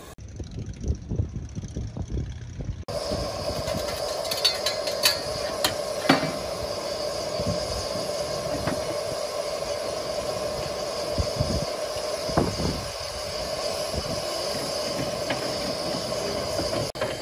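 One-third-scale miniature steam locomotive standing and hissing steam steadily, with a constant tone inside the hiss and a few sharp metallic clanks. The first three seconds are low rumbling.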